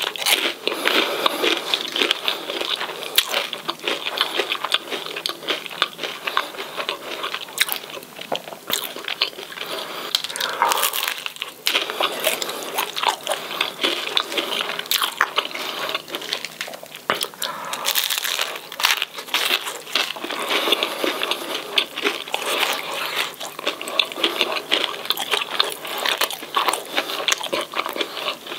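Crispy fried fish and chips crunching close to the microphone: a dense, irregular run of crunches and crackles that never pauses.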